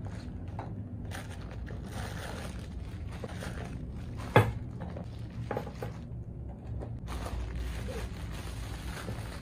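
Paper mailer and plastic wrapping being handled: kraft paper rustling and clear plastic wrap crinkling as wrapped items are pulled out of the package, with one sharp knock about halfway through.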